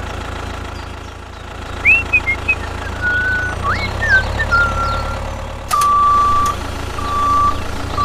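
A vehicle engine runs with a steady low hum, with a few short whistling chirps over it. About two-thirds of the way in, a reversing alarm starts sounding in long, evenly spaced beeps.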